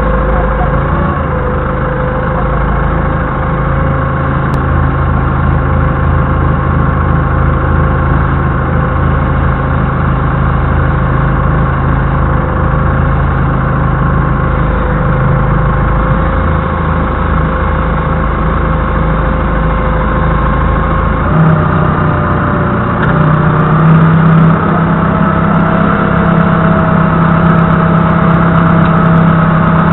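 Doosan 4.5-ton forklift's engine running steadily, heard from the driver's seat. About 21 seconds in its pitch steps up, and a little later it runs higher and louder as the throttle is opened.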